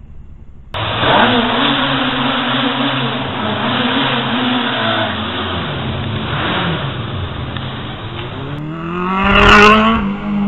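Inline-four 600 cc motorcycle accelerating through a concrete tunnel, the engine note rising and dropping back with gear changes. Near the end a Suzuki Bandit GSF 600 N accelerates past close by, loudest as it passes, then pulls away.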